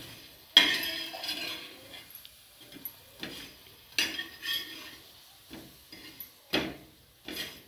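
A steel spatula scraping and tapping against a flat pan while a pea kebab is turned, in a series of separate strokes, the loudest about half a second in.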